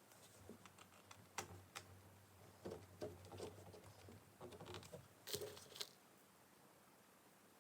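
Faint, irregular clicks and taps of a screwdriver and small screws on a laptop's plastic frame during reassembly, stopping about six seconds in.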